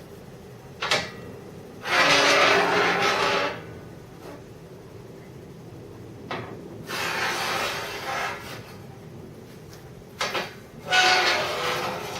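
Rough abrasive noise of a steel plate's cut edges being ground or dressed down, in three bursts of one to two seconds each with a few short knocks between them. The plate's edges were cut untidily and warped by the heat of cutting, and this is the tidying-up work.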